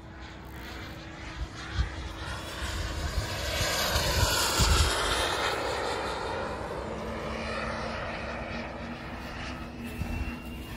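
Radio-controlled model jet flying overhead, its engine noise swelling to a peak about four to five seconds in and then slowly fading as it passes.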